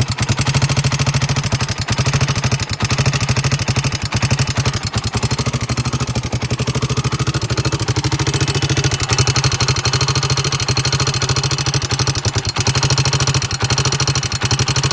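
2002 Honda 300EX quad's single-cylinder four-stroke engine running steadily with a loud, fast tick that the owner finds louder on the right side of the motor.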